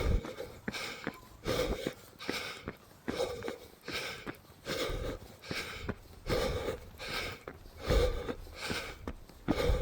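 A runner's heavy breathing while running uphill: hard, rhythmic breaths about every three-quarters of a second.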